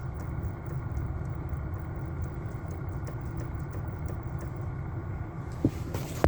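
Light repeated knocking in a 2009 Kia Cee'd's steering column, over the steady low rumble of the car's engine running, with two sharper knocks near the end. The owner traces the knock to the electric power steering unit, the steering shaft cross joints having proved sound.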